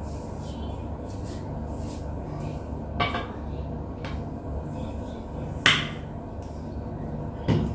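Three sharp clinks of kitchenware being handled, the middle one the loudest and the last near the end, over a steady low hum.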